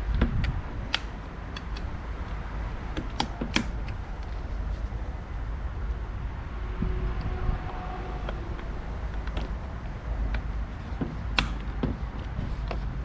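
Scattered sharp clicks and knocks of hand work on a car door's latch and trim parts, with a few loud ones about a second in, around three and a half seconds, and near the end, over a steady low rumble.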